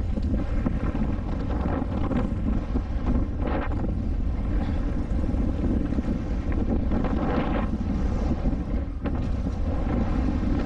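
Wind rumbling over the camera microphone of a mountain bike riding down a dirt jump trail, a steady loud rush with a few brief brighter swells.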